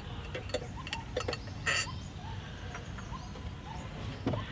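Scattered light metallic clicks and knocks, one louder rattle a little under two seconds in, from unscrewing the spare tyre's hold-down clamp in a car boot, with a few short squeaks between them.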